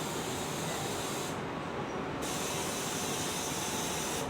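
Steady high-pitched hiss of air from a Class 395 train's pneumatic system, breaking off for under a second about a second and a half in and then resuming.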